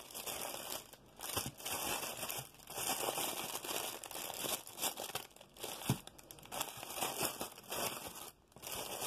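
Thin clear plastic packaging crinkling in irregular bursts with brief pauses as it is handled and pulled open.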